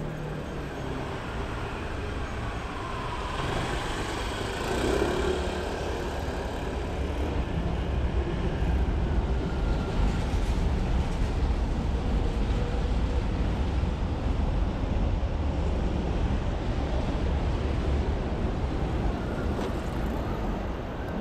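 Road traffic noise: vehicles passing on a city street, with a deep rumble that grows louder about a third of the way in.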